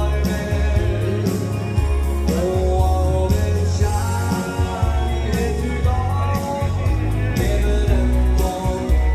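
Live dance-band music: a man singing over a Yamaha Tyros 5 keyboard and electric guitar, with heavy bass and a steady beat with cymbals.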